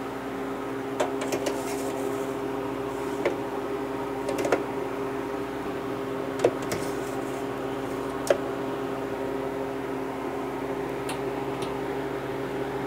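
Steady electric appliance hum, running evenly, with a few light clicks and knocks at scattered moments.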